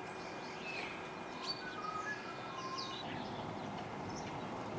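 Small garden birds chirping in scattered short calls and a few brief whistled notes, over a steady background hiss.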